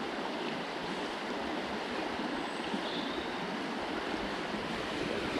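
Shallow river running steadily over a riffle: an even rushing of moving water.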